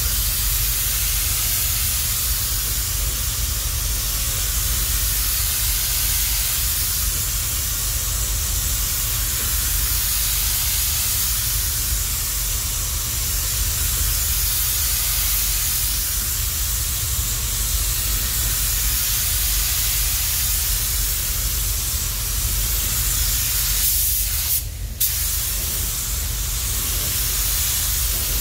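Gravity-feed paint spray gun hissing steadily as it sprays paint, over a steady low rumble; the hiss breaks off briefly near the end.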